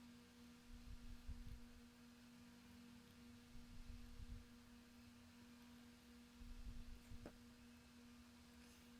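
Near silence: a faint, steady hum with faint low rumbles and a single soft click about seven seconds in.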